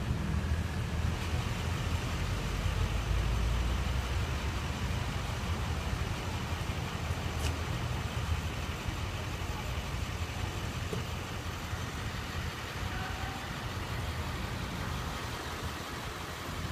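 Low, steady rumble of motor vehicle engines on a city street, louder over the first few seconds and then easing off.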